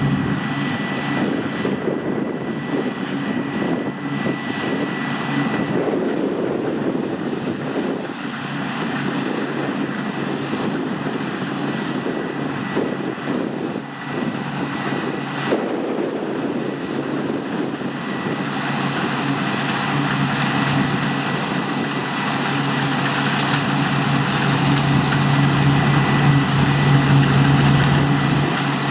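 Heavy farm machinery working in a grain field: a steady diesel engine drone with a constant high whine over it, growing a little louder over the last ten seconds.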